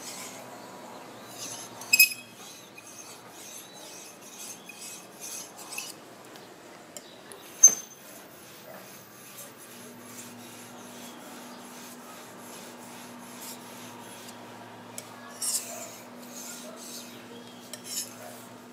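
Steel blade of a small Tramontina Century paring knife being stroked across a Shapton 5000-grit ceramic whetstone, a run of short scraping rasps. The strokes cluster in the first six seconds and again near the end, with a single sharp click about eight seconds in.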